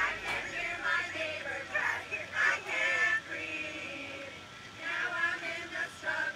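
A crowd of men and women singing together inside a subway car.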